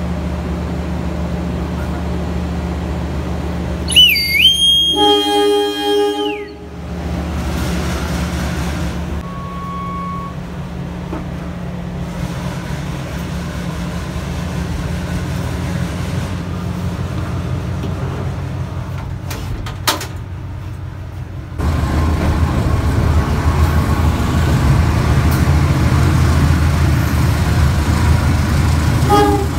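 A train stands with a steady low hum, and a train horn sounds once for about two seconds, about four seconds in, together with a high whistle tone. From about twenty-two seconds in the train runs along the track, a louder steady rumble.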